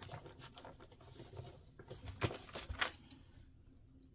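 Small plastic model-kit parts being handled and pressed together: light scattered clicks and rustling, with two sharper clicks about half a second apart just past the middle.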